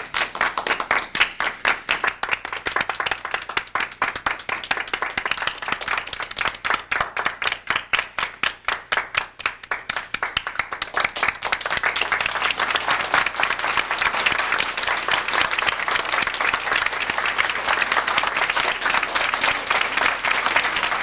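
A crowd clapping together in a quick, steady rhythm, the claps falling in time. About halfway through it breaks into dense, continuous applause.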